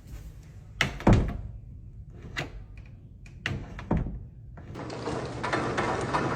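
A door and its lock being worked: a handful of sharp clicks and thunks of the latch and door, the loudest about a second in. The lock is the one that has failed.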